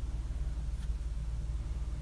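Steady low hum and faint hiss of room and recording noise, with one faint click a little under a second in.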